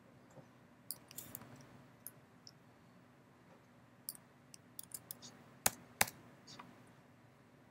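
Scattered keystrokes and clicks on a computer keyboard while code is typed and edited, irregular single taps with two louder clacks about six seconds in.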